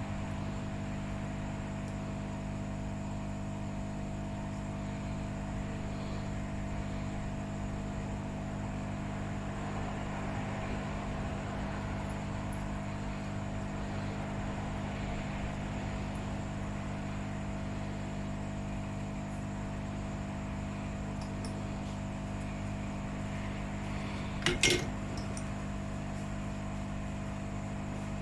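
Steady hum of bench equipment, like a running fan with mains hum, with a brief pair of small clicks near the end.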